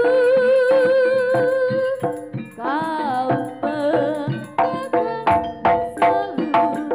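East Javanese jaranan ensemble music: a long held, wavering melody note, then a rising-and-falling phrase, and from about four and a half seconds the drums and metal percussion strike a quick, driving rhythm.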